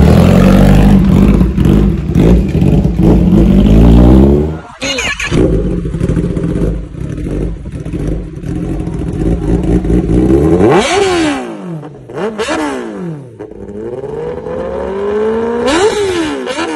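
Kawasaki ZX-10R inline-four engine through an SC Project CR-T carbon-fibre full-system exhaust, pulling hard with rising revs for the first few seconds. After a cut it idles with several quick throttle blips, each rising sharply and dropping back, in the second half.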